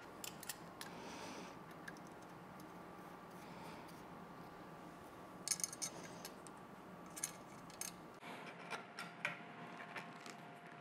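Faint, scattered clicks and clinks of small metal parts being handled, over a low steady shop background.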